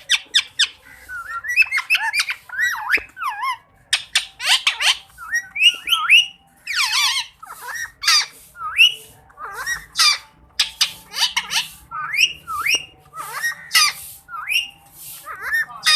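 Indian ringneck parakeet calling and chattering: a rapid, continuous run of short, shrill squawks and whistled notes, each sweeping quickly up or down in pitch.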